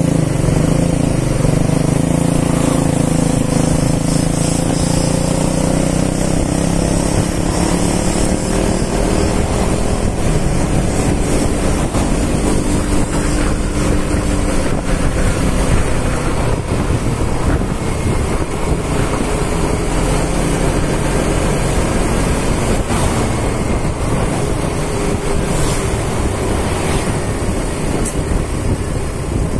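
Wind rushing over the microphone and a small scooter's engine running at cruising speed, its pitch drifting slightly up and down.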